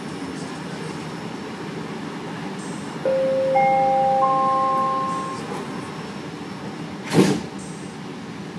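Vancouver SkyTrain standing at a station with a steady hum. About three seconds in, the three-note rising door-closing chime sounds, and about seven seconds in the doors shut with a short thump.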